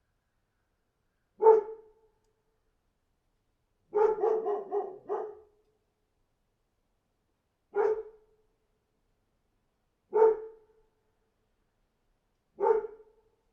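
A dog barking: a single bark, then a quick run of about five barks, then three more single barks a couple of seconds apart, with silence between them.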